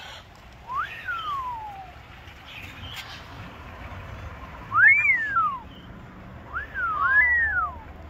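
Clear whistles, each swooping up in pitch and then falling away: four of them, the last two overlapping.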